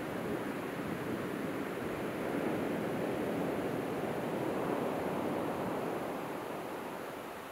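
Small ocean waves breaking and washing up a sandy beach: a steady hiss of surf that swells about two seconds in and eases off near the end.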